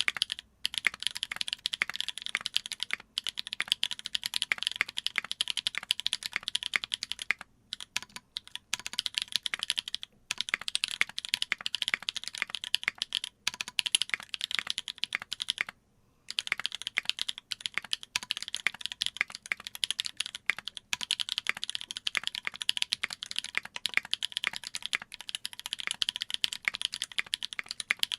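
Fast continuous typing on a mechanical keyboard with lubed Holy Panda tactile switches on an aluminium plate and GMK keycaps, dense keystroke clacks broken by a few short pauses.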